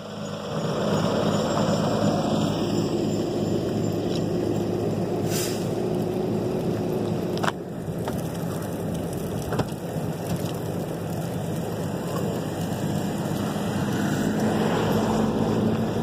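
Vehicle engine running steadily under load, a snowbound minivan being pulled out on a tow chain. The hum comes up about half a second in and holds, with a brief dip about seven and a half seconds in.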